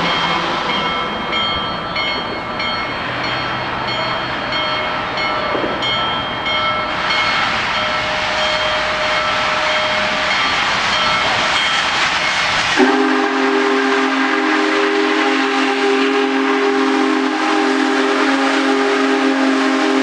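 Union Pacific Big Boy No. 4014 steam locomotive approaching with a steady rumble and hiss. About two-thirds of the way through, the sound switches abruptly to the loud, steady chord of its multi-tone steam whistle, held for several seconds.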